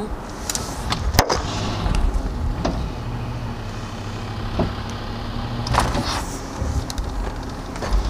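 Tow truck engine running steadily, heard from inside the cab, with a few sharp clicks and knocks, the loudest about a second in.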